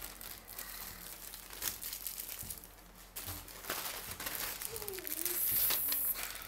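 Plastic courier mailer bag crinkling as it is handled and opened, with paper rustling that is loudest near the end as a printed invoice is pulled out.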